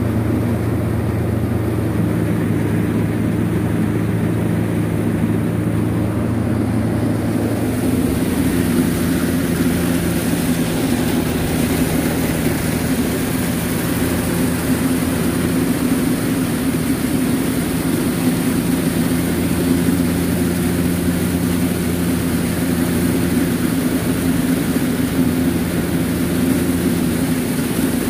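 Tractor-driven silage blower running steadily, blowing chopped corn silage up the filler pipe into a tower silo: a loud machinery hum of several steady tones whose pitch shifts about eight seconds in.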